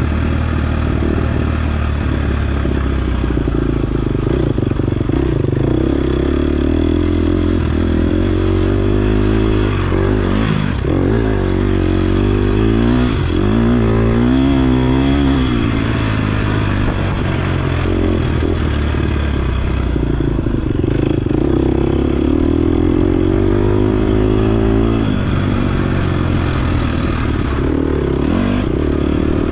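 KTM 250 XC-F's single-cylinder four-stroke dirt-bike engine ridden around a motocross track, its pitch rising and falling again and again as the throttle is opened and shut. The biggest swings come in the middle of the stretch and again later on.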